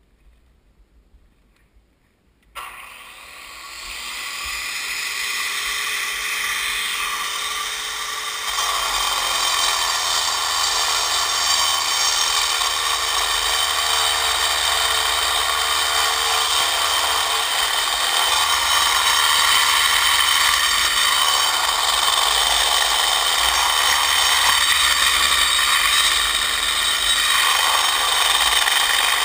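Bosch angle grinder with a turbo blade switched on about two and a half seconds in and spinning up, then grinding steadily into stone; the sound grows louder about eight seconds in as the blade bites deeper.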